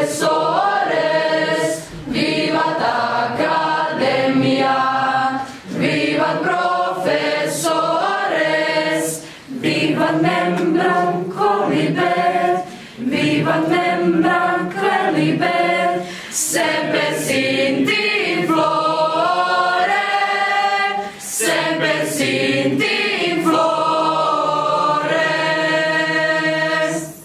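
Mixed choir of teenage girls and boys singing a cappella, in phrases with short breaths between them. The song closes on long held notes that stop near the end.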